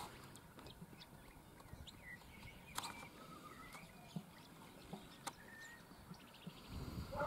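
Faint outdoor ambience of scattered wild bird chirps and calls, with a few sharp clicks and low wind rumble on the microphone that grows near the end.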